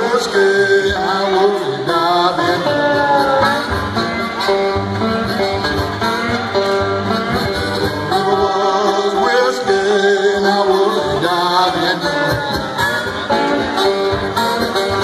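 Live blues on a metal-bodied resonator guitar played slide style, with pitches gliding between notes, and a man singing along.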